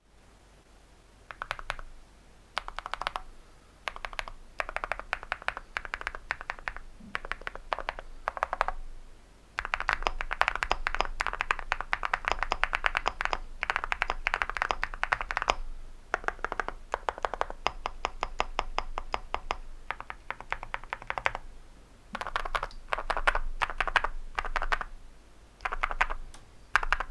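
Typing on a mechanical keyboard, an Epomaker x Feker Galaxy80 with Epomaker Jade Blossom 35 g linear switches and ceramic keycaps, giving deep thocks. The keystrokes come in bursts separated by short pauses, with a long, fast run of typing through the middle.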